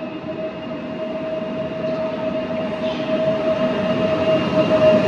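PESA Dart electric multiple unit (PKP Intercity ED161) pulling into the platform, its rumble growing louder as the cars come alongside, with a steady whine over it.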